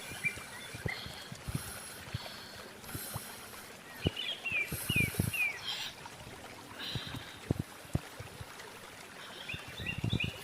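Close-up chewing and crunching of raw food: scattered wet clicks and crisp bites. Short chirping calls like a bird's come twice, about five seconds in and near the end.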